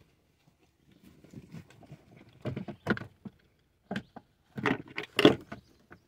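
Handling of a new Nissan Maxima front seat belt assembly: the retractor, webbing and latch plate clatter and click as they are moved and set against the door pillar, in a few bursts, the loudest about five seconds in.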